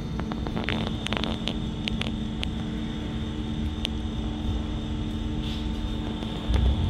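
Fire in a wood-and-pellet camping stove crackling, with a cluster of sharp pops in the first couple of seconds and one more a little later, over a steady mechanical hum. A low rumble swells near the end.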